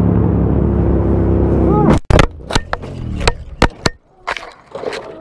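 Sport motorcycle's engine running steadily with wind rush, cutting off suddenly about two seconds in as the bike crashes. A quick run of hard knocks and clatters follows as the camera tumbles along the ground, then a few fainter knocks.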